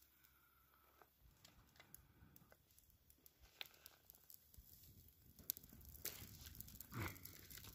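Faint crackling and rustling of a dry tinder bundle of plant fibre, the small crackles thickening and growing louder toward the end, with a brief louder rush near the end.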